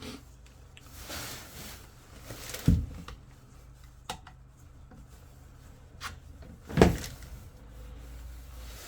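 Handling sounds from work on a boiler: two dull knocks, about three and seven seconds in, with a few light clicks and some rustling between them.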